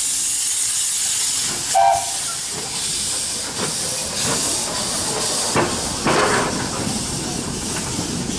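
Miniature steam locomotive moving off with its cylinder drain cocks open: a loud, steady hiss of escaping steam, with a few irregular puffs from about halfway through. A brief short tone sounds about two seconds in.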